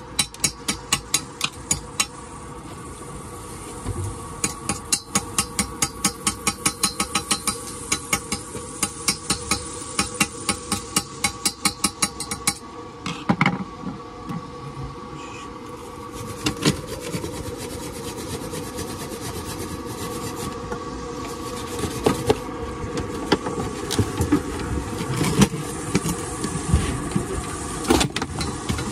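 A hand tool tapping rapidly at a fresh stick weld on 316 stainless steel box section, knocking off the slag, at about four metallic taps a second for the first twelve seconds or so. After that it changes to scraping and rubbing with scattered knocks.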